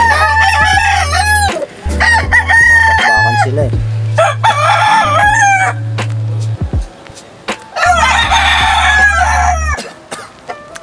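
Gamecock roosters crowing, four crows one after another with short gaps between them, and some clucking.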